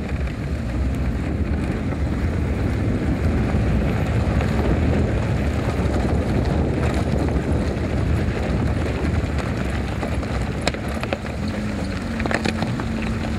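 Vehicle engine and tyre rumble on a rough dirt track, heard from inside the cab. Near the end come a few sharp knocks and rattles, and a steady engine note sets in.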